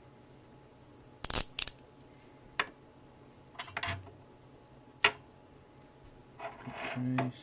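Sharp metallic clicks and clacks of small chrome vanadium 1/4" drive sockets being handled, unclipped from a ratchet and a socket rail, in five separate knocks a second or so apart, then a short rustle of handling near the end.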